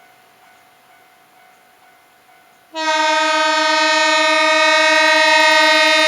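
Train horn sounding one long, steady blast that starts abruptly almost three seconds in. It is a warning sounded as the train creeps over a level crossing that has failed.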